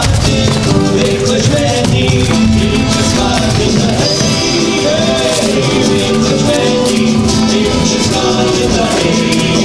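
Lively dance music with a steady beat and shaken percussion running through it.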